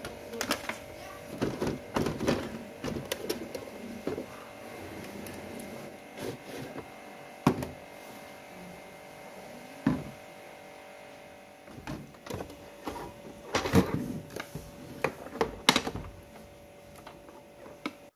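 Irregular plastic clicks and knocks from a Toshiba RT-SX26 radio cassette recorder being handled and plugged in, with a faint steady tone underneath. The clicks bunch together a second or two in and again about three-quarters of the way through.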